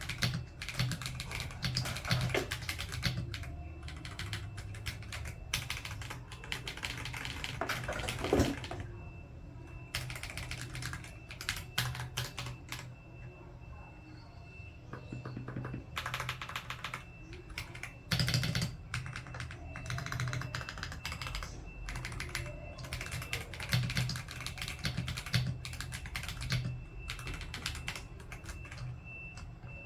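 Typing on an Akko 5075B Plus mechanical keyboard: runs of clacking keystrokes with short pauses between them.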